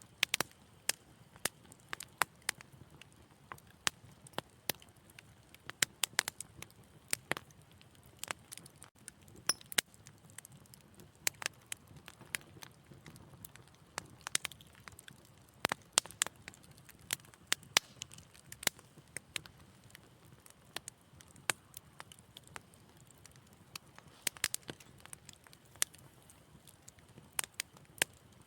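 Wood fire in a fireplace crackling, with irregular sharp pops and snaps, several a second, over a faint low hiss of burning.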